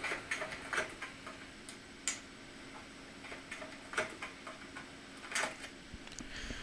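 Scattered small clicks and taps of hard plastic and metal as a laptop is being taken apart by hand, about half a dozen at irregular intervals.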